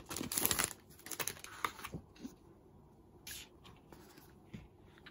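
A clear plastic sleeve crinkling as a photobook is handled. This gives way to quieter, scattered rustles and soft taps of paper photo pages being unfolded, with one brief louder rustle a little past the middle.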